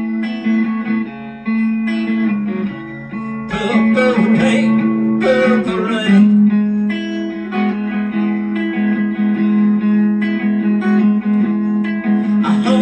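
Harley Benton Madcat Telecaster-style electric guitar playing held chords that ring on. There are brighter strums about three and a half seconds in, again around five seconds, and near the end.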